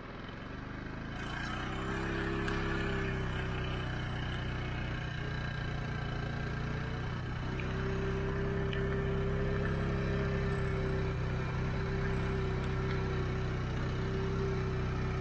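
ATV engine running steadily as the four-wheeler drives over a rough dirt track, building up over the first couple of seconds.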